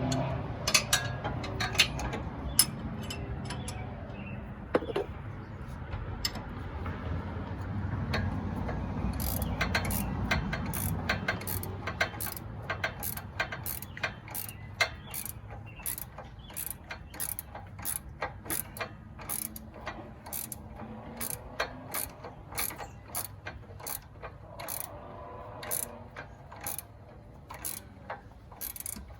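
Hand ratchet clicking as it backs off the nut on a stock sway bar end link, a steady run of about two clicks a second from about nine seconds in. A low rumble underlies the first few seconds.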